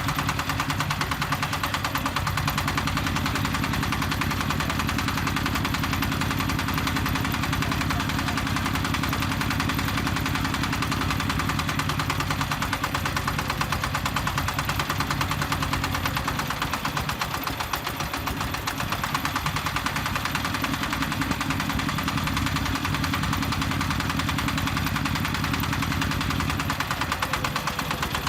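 Diesel engine of a self-loading concrete mixer running steadily with a fast even clatter, easing briefly just past the middle.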